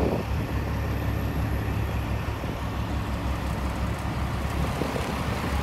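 Caterpillar diesel engine of a Peterbilt 385 truck idling steadily, a low, even rumble.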